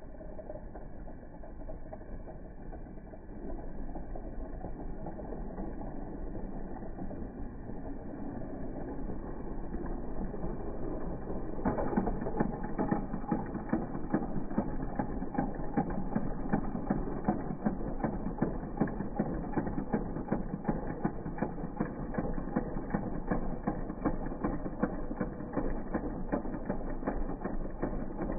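Battery-powered toy train engines running, a steady whir of small motors and gears. About twelve seconds in it turns louder into a fast run of clicking, as the two engines push head to head against each other.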